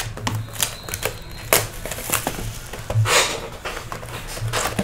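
A cardboard trading-card hobby box being unwrapped and opened by hand: plastic wrap crinkling and cardboard scraping in quick, irregular clicks and swishes, with louder swishes about one and a half, three and four and a half seconds in.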